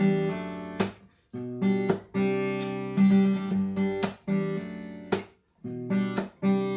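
Acoustic guitar strumming chords with no singing, the chords ringing between strokes. The strumming stops short twice, about a second in and again near five seconds, before it picks up again.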